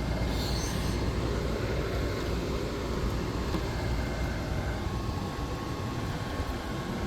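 Steady low rumbling background noise, with a faint steady tone coming in about five seconds in.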